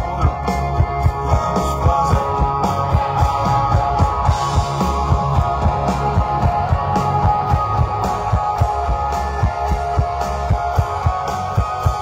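Live rock band playing an instrumental passage through the concert PA: electric guitars and bass over a steady drum beat.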